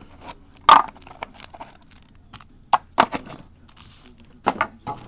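Trading-card box being opened and its foil pack wrapper handled: a string of short crinkles, rustles and taps, the loudest about a second in, others around three seconds in and near the end.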